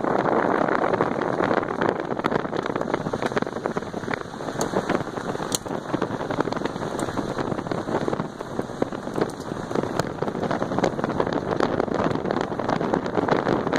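Tyres of a 1997 Nissan Pathfinder rolling over a wet gravel forest road: a steady rushing noise with many small clicks and pops of grit and stones under the tread, with wind on the microphone.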